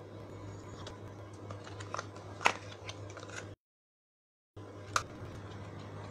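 Light clicks and taps of a cosmetic cream jar being handled and set down among other products: a few faint ticks, a sharper tap about two and a half seconds in and another about five seconds in, over a steady low hum. The sound cuts out completely for about a second in the middle.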